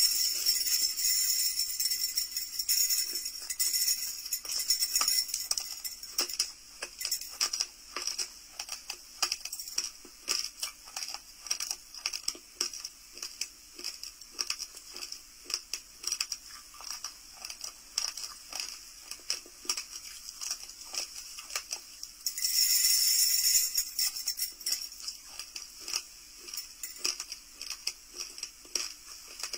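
Raw, uncooked rice grains crunched between the teeth, a dense run of sharp, fast crackling clicks. The crunching is broken at the start, and again about two-thirds of the way through, by a hissing rush of loose dry grains.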